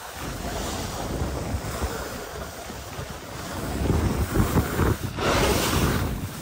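Wind buffeting the microphone of a skier's camera on a downhill run, over the hiss of skis sliding on snow. The hiss swells louder about five seconds in.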